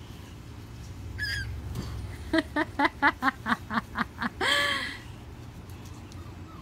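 Toddler giggling: a run of about ten quick laughs, ending in a drawn-out squeal, as puppies climb over him. A brief high squeak comes about a second in.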